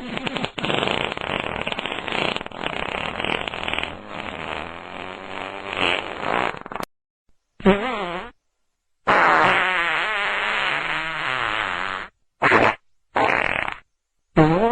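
A series of fart sounds. A long one with wavering pitch runs for about seven seconds. After a short silence come about five more, one of them about three seconds long and the rest brief, with silences between.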